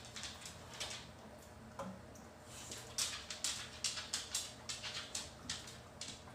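Kitchen utensil scraping and clicking against a pan and plates as food is served up. Short, sharp scrapes and taps come sparsely at first, then about three or four a second from about halfway through, over a faint steady low hum.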